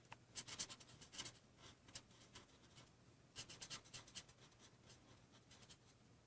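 Faint scratching of an alcohol-marker tip on cardstock as flowers are coloured in: quick short strokes in two bursts, the second about three seconds after the first, with a few lighter strokes after it.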